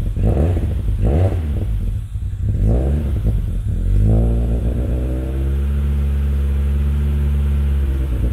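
Toyota AE86's 4A-GE twin-cam four-cylinder engine heard through a new Fujitsubo exhaust manifold and dual-tip muffler, blipped several times over the first four seconds, then settling to a steady idle.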